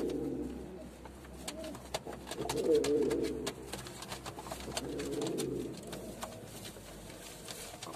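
Domestic cock pigeon cooing in courtship, three rolling bouts a couple of seconds apart, with light scratchy clicks in between.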